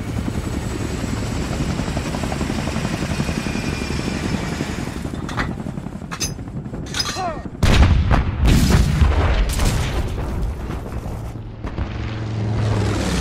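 Helicopter rotor noise for the first few seconds, then scattered gunshots, and about seven and a half seconds in a sudden loud explosion followed by heavy gunfire and further blasts.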